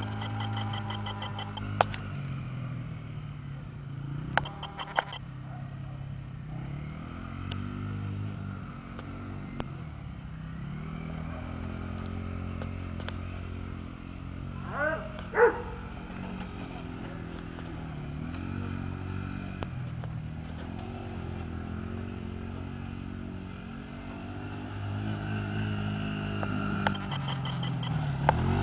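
Can-Am DS70 youth ATV's small single-cylinder four-stroke engine revving up and down as it laps a dirt track, louder when it passes close and fainter as it moves away. A short high-pitched call about halfway through.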